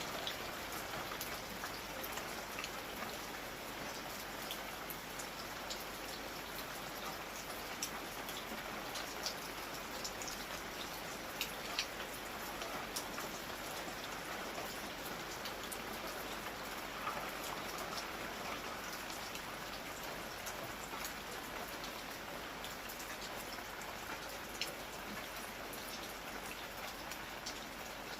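Steady rain falling, an even hiss with individual drops striking close by as scattered sharp ticks, a few louder ones near the middle.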